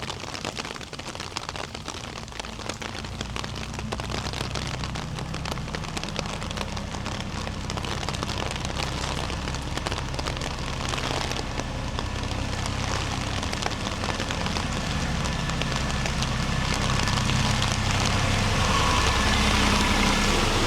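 Rain falling, a dense patter of drops hitting hard surfaces. Over the second half a motor vehicle's engine grows steadily louder as it approaches.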